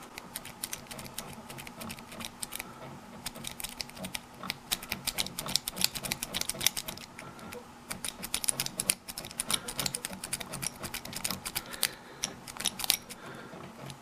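Strip of tin-can metal raking in the keyway of a Master dimple padlock: rapid, irregular metallic clicking and scraping against the lock's pins, getting busier after the first few seconds.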